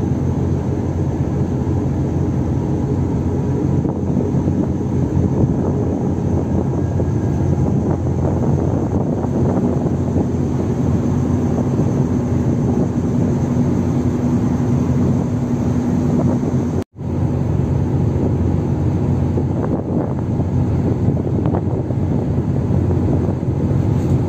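Diesel engines of an LCT landing craft running steadily under way, a loud low drone, cutting out for an instant about two-thirds of the way through.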